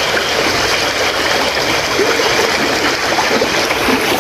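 Floodwater flowing fast and steadily, a loud, even rush of running water.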